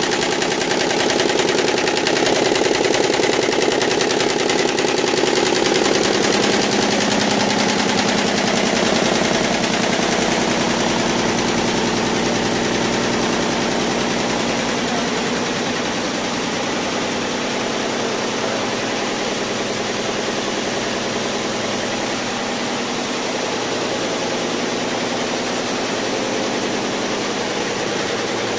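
YBD164 quilting embroidery machine running, its needles stitching in a rapid, steady mechanical chatter. A little louder over the first third, then evening out.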